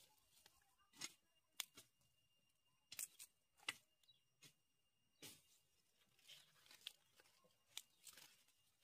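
Hands pulling fresh ginger rhizomes out of loose soil and breaking pieces off the clump: irregular sharp snaps and crackles with soft rustling between them.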